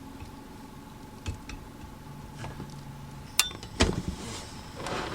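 Camp cooking gear being handled: a few sharp clicks and knocks, the loudest two close together a little past halfway, then a short rush of noise near the end.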